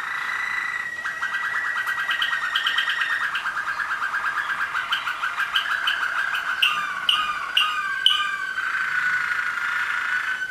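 Waterslager (Malinois) song canaries singing continuously. It opens with a held whistle-like note, runs into rapid rolling trills, has a short run of quick falling notes in the second half, and settles into a long held note near the end.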